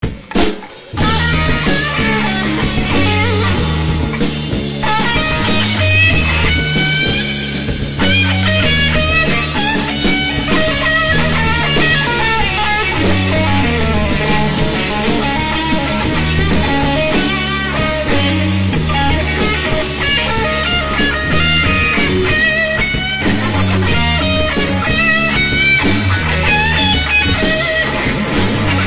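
Instrumental rock intro music with guitar and drums over a repeating bass line.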